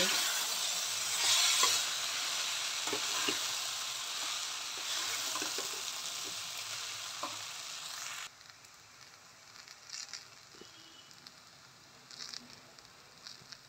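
Washed poha and vegetables sizzling in a hot steel kadhai while a steel spatula stirs and scrapes through them, with scattered clicks of the spatula against the pan. The sizzle cuts off suddenly about eight seconds in, leaving only faint scrapes and taps.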